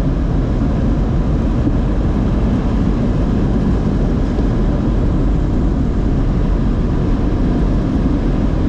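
Automatic tunnel car wash equipment working on the car, heard from inside the cabin: a steady, loud rushing noise, heaviest at the low end, with no breaks.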